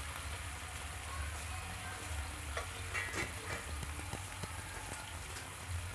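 Food sizzling in a frying pan on an electric hot plate, a steady hiss with a few light clicks and rattles around the middle.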